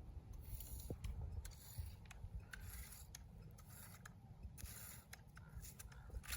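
Faint, irregular scratchy strokes, about two or three a second, of a hand garden tool cutting through weeds.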